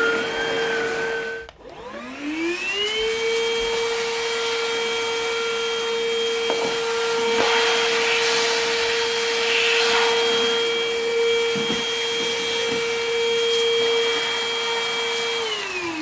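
PrettyCare W100 cordless stick vacuum running, cutting off abruptly about a second and a half in. It then starts again with a rising whine as the motor spins up, runs at a steady high whine, and winds down with a falling pitch near the end as it is switched off.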